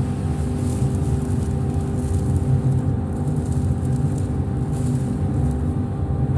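Workshop dust extractor running steadily: a low rumble with a constant hum above it.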